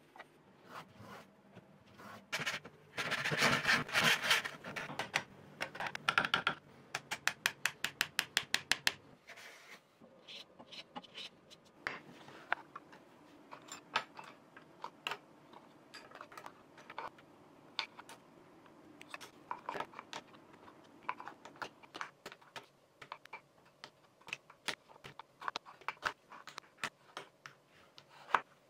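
Hand tools and small parts on wood: a few seconds of scraping strokes, then a fast even run of short strokes at about seven a second. After that come light, scattered clicks and taps as wooden parts and pens are handled and set down on a wooden benchtop, with a sharper click near the end.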